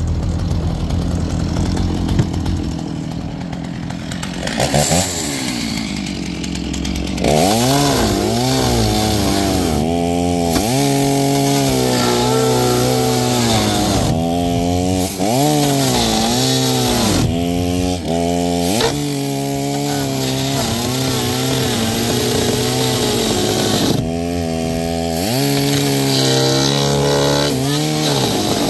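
Chainsaw cutting into the boat to get at the gas tank. It runs lower and steadier for about the first seven seconds, then at high revs, its pitch sagging under load and recovering again and again through the cuts.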